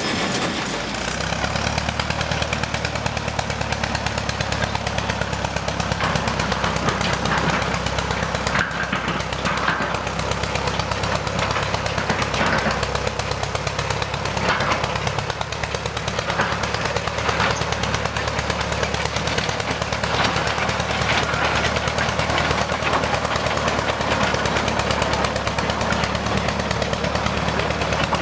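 International diesel crawler dozer's engine running steadily with a rapid chugging exhaust as the machine drives along, with occasional clanks from its tracks.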